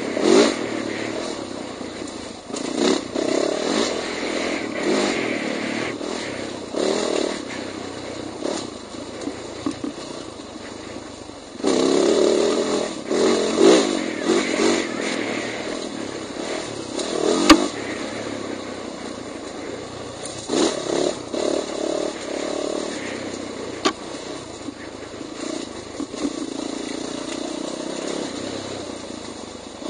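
Off-road dirt bike engine revving up and down as the throttle is worked along rough single track, with the bike clattering over the ground. One sharp knock a little past halfway.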